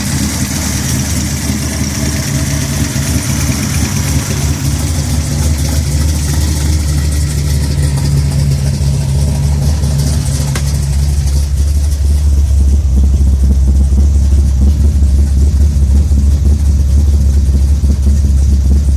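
Chevrolet 496 cubic-inch big-block V8 with AFR 315 heads and a custom Straub hydraulic roller cam, running steadily at idle. It gets a little louder about twelve seconds in.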